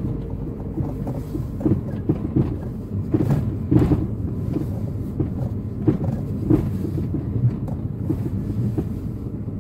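Car driving slowly, heard from inside the cabin: a steady low rumble of engine and tyres with irregular knocks and rattles.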